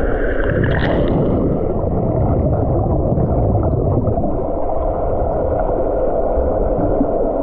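Muffled rushing and bubbling of water heard underwater, stirred up by a swimmer's front-crawl strokes and kicks in a pool. The sound is steady and low, with no clear separate splashes.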